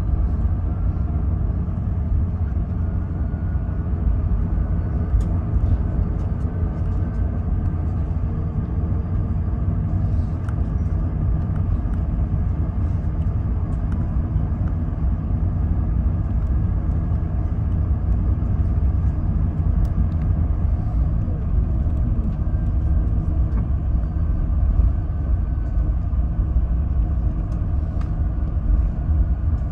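Steady low cabin rumble inside an Airbus A380-841 taxiing after landing, with faint steady tones above the rumble.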